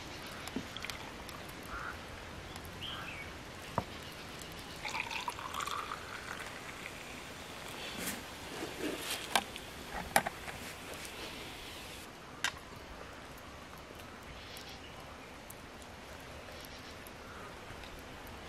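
Raffia palm wine poured from a plastic jerrycan into cups, a trickling pour whose pitch rises as a cup fills. A few sharp knocks follow in the middle.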